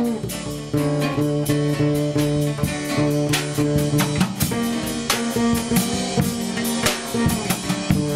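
Acoustic trio improvising: a guitarrón's plucked bass notes under a drum kit keeping a steady beat on drums and cymbals, with long held notes sounding over them.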